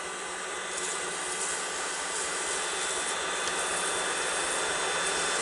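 Wood lathe running as a spinning resin-and-spruce-cone blank is wet sanded: a steady hiss over the motor's faint whine, slowly growing louder.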